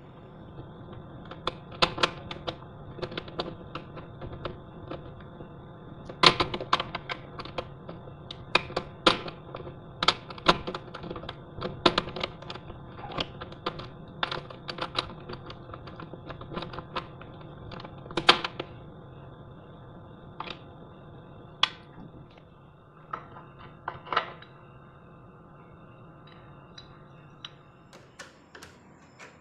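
Irregular sharp taps and knocks, sometimes several a second, over a steady machine hum; the taps thin out after about twenty seconds.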